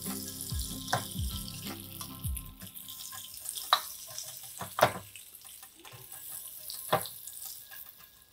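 Oil sizzling in the wells of a hot electric takoyaki pan as a silicone basting brush coats them, with a few sharp clicks of the brush against the pan.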